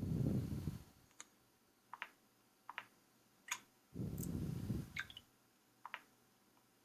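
A series of short, sharp clicks, about six, each with a slightly different pitch and timbre. They are interspersed with two louder, low, muffled thuds, one at the start and one about four seconds in.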